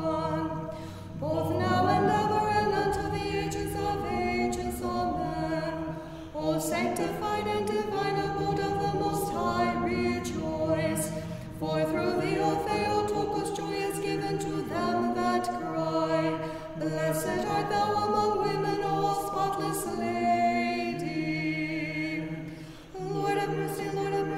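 Unaccompanied choir singing Orthodox liturgical chant in phrases of a few seconds each, over a low held note.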